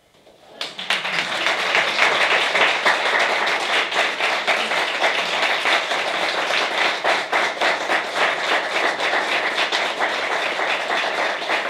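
Audience applauding, beginning about half a second in and keeping up at an even level.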